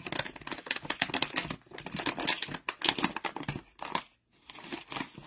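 Kraft-paper stand-up pouch being torn open at the top and handled: rapid crinkling and crackling of stiff paper, with a brief pause about four seconds in.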